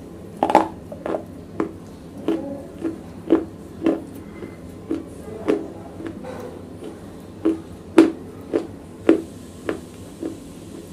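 Broken pieces of wet black slate clay being chewed right at a lavalier microphone: a run of sharp crunches, roughly two a second.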